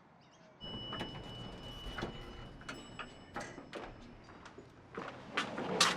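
Door and movement sounds: a run of clicks and knocks over room noise, with a steady high tone lasting about three seconds, starting just under a second in.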